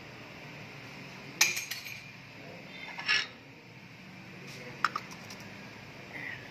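Metal hand tools clinking and knocking against metal under a vehicle: a loud clank about a second and a half in with a short rattle after it, a clatter near three seconds, and two quick light clicks near five seconds.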